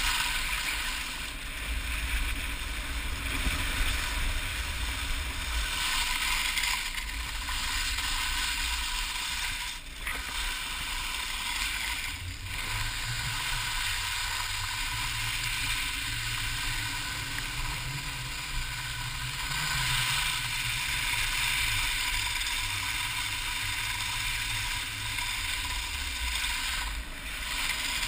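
Steady scraping hiss of edges sliding over hard-packed snow, with wind rumble on the sealed housing of a GoPro HD Hero 960 carried downhill. The sound is muffled and rattly, with a few brief drops in level.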